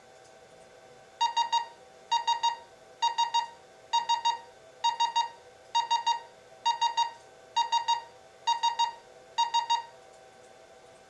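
Electronic alarm of a bomb-shaped alarm clock money box beeping in bursts of three quick high beeps, about one burst a second, ten bursts in all, then it stops.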